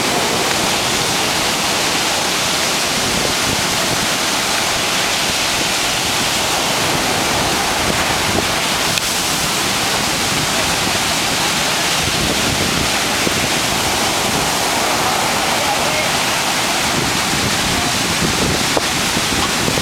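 Heavy surf breaking and washing up the beach in a steady rush of noise.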